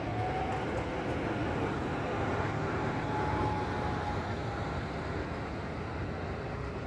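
Older articulated high-floor tram rolling past on street track: a steady rumble of wheels on rails with a faint high tone now and then.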